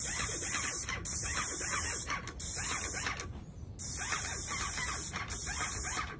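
Paint spray gun on an extension pole spraying in bursts: a loud, high hiss as the trigger is held, cut off briefly about every second, pausing for about half a second in the middle, then spraying again.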